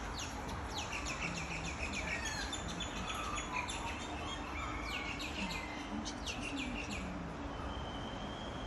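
Small birds chirping: rapid high notes that sweep downward, in one burst over the first few seconds and another about five seconds in, over steady low background noise.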